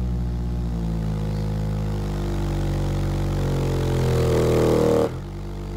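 Fi BTL 18-inch subwoofer playing a loud sine test tone from a signal generator, lowered from about 63 Hz to about 44 Hz, with a buzzing drone of overtones. The level drops suddenly about five seconds in.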